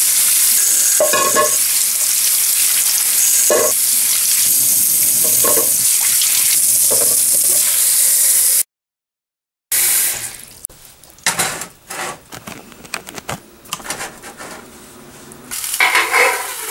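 Kitchen tap running water into a metal pot of cut squash pieces: a steady hiss that cuts off abruptly about halfway through. After a brief gap, scattered light clinks and knocks of the pot.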